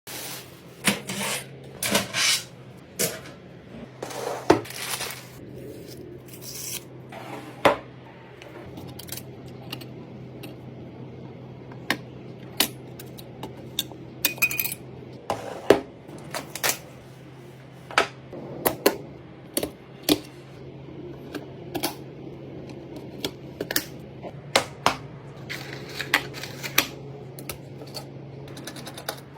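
Irregular sharp clicks and clinks of small hard parts being handled and fitted together during a desktop PC build, over a steady low hum.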